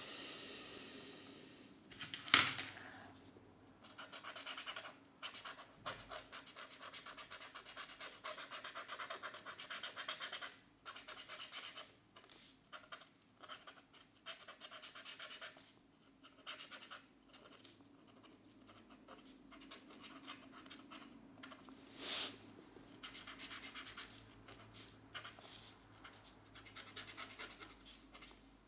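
Felt-tip markers scratching on colouring-book paper in quick back-and-forth strokes, in runs of several seconds with short pauses between. A sharp click about two seconds in, and a softer one later on.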